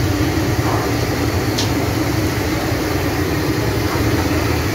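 Chicken pieces deep-frying in a large wok of hot oil: a steady dense sizzle over the low, even roar of the gas burner beneath it.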